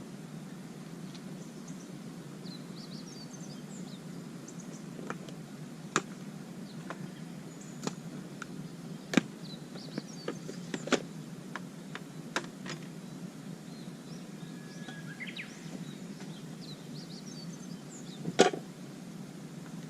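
Wood campfire crackling, with irregular sharp pops, the loudest near the end. Birds chirp lightly in the background.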